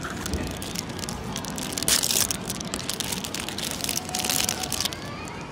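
Plastic toy packaging crinkling and rustling as hands pick through and handle blind-bag packets, loudest about two seconds in.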